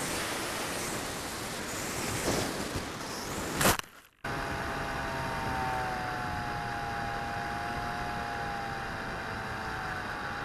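Wind rushing over the onboard camera microphone of a low-flying RC flying wing, with a sharp knock about three and a half seconds in and a brief drop-out after it. The steady rush then returns with a faint wavering whine.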